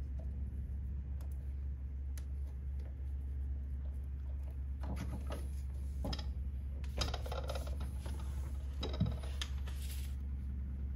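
Handling noise from a mini magnetic drill being worked by hand: scattered light clicks, rustles and knocks as its plastic coolant hose is fitted and the drill is tipped onto its side, with one sharper knock about nine seconds in. A steady low hum runs underneath.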